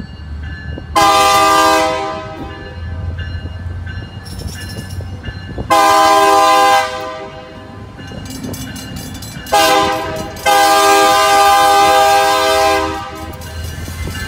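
Pacific Harbor Line MP20B-3 #21 locomotive sounding its horn in the grade-crossing pattern, long, long, short, long, with the last blast held for over two seconds. A steady low locomotive rumble sits underneath.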